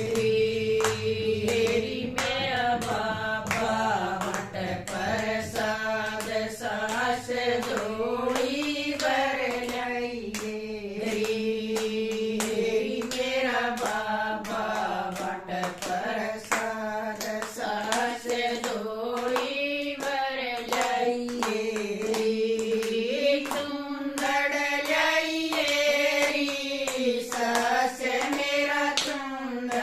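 A small group of women singing a Haryanvi devotional bhajan together, clapping their hands in a steady rhythm to keep the beat.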